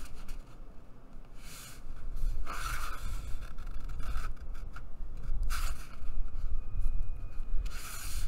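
Thick mixed-media paper sliding and rubbing against a cutting mat and under the hands as it is folded, in several brief swishes.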